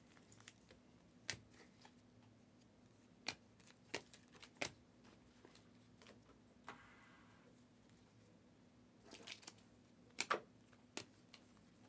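Panini Prizm trading cards being handled and sorted by hand: faint, scattered clicks and taps of card edges against one another and the stack, with a short soft slide about seven seconds in and a quick cluster of clicks near ten seconds.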